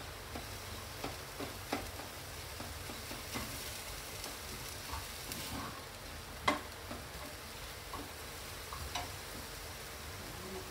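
Grated apple sizzling in a non-stick frying pan while a spatula stirs and scrapes through it, with scattered light taps of the spatula on the pan and one sharper tap about six and a half seconds in. The apple pulp is cooking down almost dry, its juice nearly gone.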